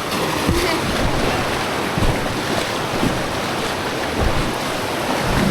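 River water rushing steadily around a raft, with wind rumbling on the microphone.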